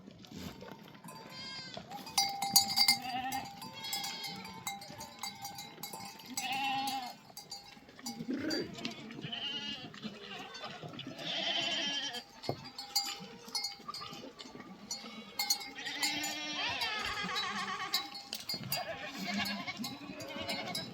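A flock of sheep and goats bleating over and over, many calls overlapping, with livestock bells clinking and ringing among them.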